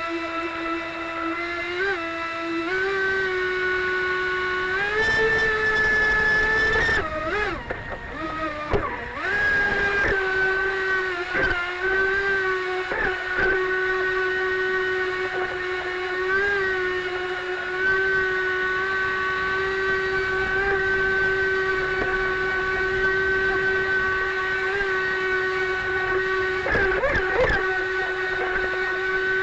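Steady high-pitched whine of a scale RC mini jet boat's motor and jet drive running under way. The pitch steps up about three and five seconds in, wavers and dips for a couple of seconds, then holds steady, wavering again briefly near the end.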